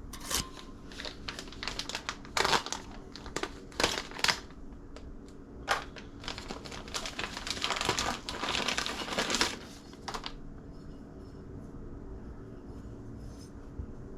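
Packaging crinkling and rustling as it is handled, in irregular bursts that stop about ten seconds in.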